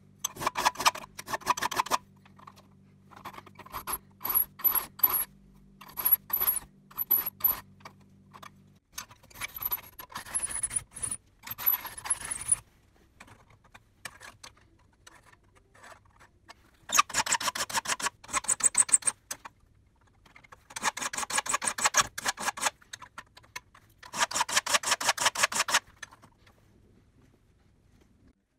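A flat file being run along the tips of a crosscut saw's teeth to joint them level: bursts of metal-on-metal rasping strokes with pauses between. A faint high squeal runs over the strokes in the first half.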